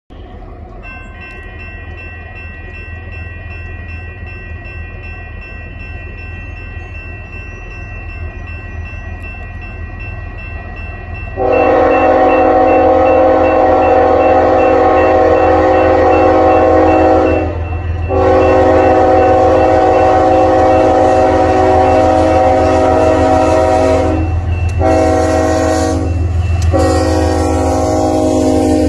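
Approaching Union Pacific diesel freight locomotive rumbling louder, then sounding its air horn chord in a long blast, a second long blast, a short one and a final long one that carries on as the engine passes: the standard long-long-short-long grade-crossing signal.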